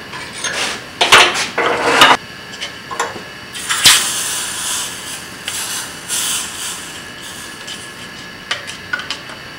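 Pliers clanking against a steel rod clamped in a bench vise: a few sharp metal knocks in the first two seconds. About four seconds in, the pliers are dipped into a tub of liquid, giving a hiss that lasts a couple of seconds, followed by a few light knocks.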